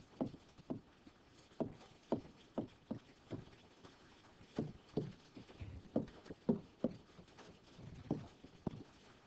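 Stylus tapping and knocking on a touchscreen during handwriting: a run of about fifteen soft, irregular taps.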